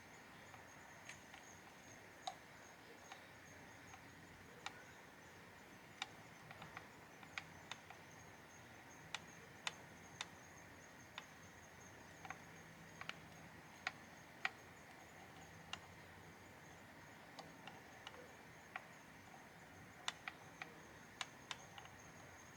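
Near silence with scattered faint, sharp clicks and ticks at irregular intervals, over a faint steady high-pitched hum.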